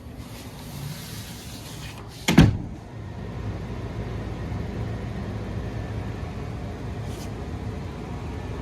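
One loud bang or knock about two seconds in, then a steady low mechanical hum that sets in just after it and keeps running.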